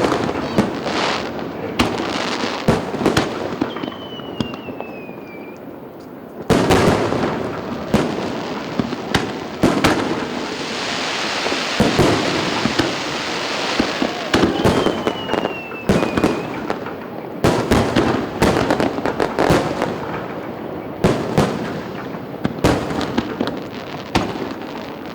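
Aerial fireworks display: a steady run of sharp bangs from bursting shells, with a dense crackling spell about halfway through and a short falling whistle twice.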